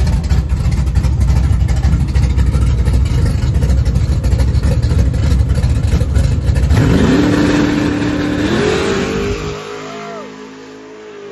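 Chevrolet ZZ632 big-block V8 in an old Chevy pickup, a loud deep rumble close by at the starting line. About seven seconds in it launches down the drag strip: the engine pitch rises, holds, climbs again and fades as the truck pulls away.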